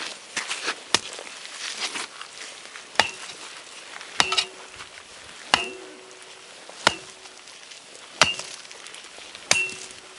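A McLeod trail tool chopping into the trail in steady strokes, about one blow every 1.3 seconds, each stronger blow followed by a brief metallic ring.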